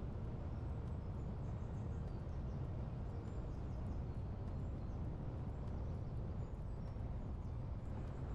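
Steady low rumble of wind and road noise from a moving car, with faint short bird chirps here and there above it.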